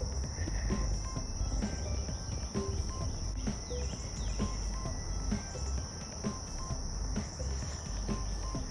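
Steady high-pitched drone of insects in the trees and brush around a pond, unbroken throughout, with a low rumble underneath.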